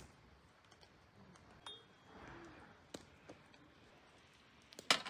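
A few scattered small clicks and clinks of dishes and utensils being handled at a table, with a quick cluster of sharper clicks near the end.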